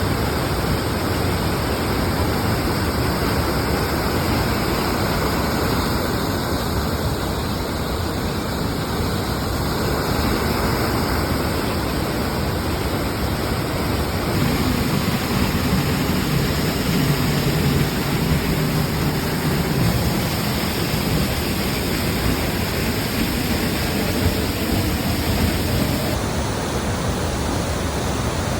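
Waterfall cascading over rock: a loud, steady rush of falling water.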